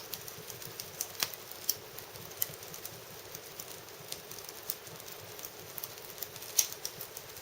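Wood fire crackling in an irori sunken hearth: irregular sharp pops and snaps over a faint steady hiss, with one louder pop near the end.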